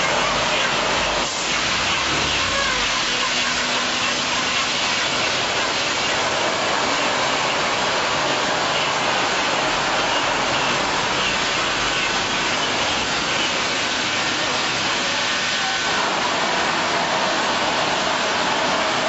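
Poultry processing line machinery running with a steady hiss.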